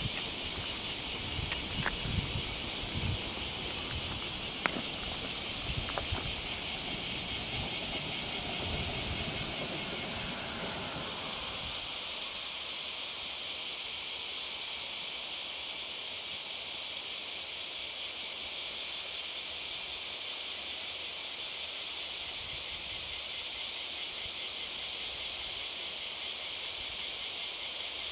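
Dense chorus of summer cicadas: a steady, high, finely pulsing buzz. For the first twelve seconds or so there is also a low rumble and a few sharp clicks.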